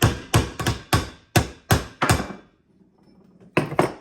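Hammer tapping a new U-joint's bearing caps into the prop shaft yoke: about eight sharp metallic strikes at roughly three a second, a pause, then two more quick taps near the end.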